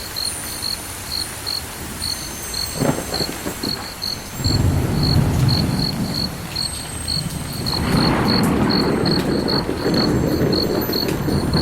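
A cricket chirping steadily, about three to four short chirps a second, over a background hiss. A low rumble swells in about four seconds in and again near eight seconds.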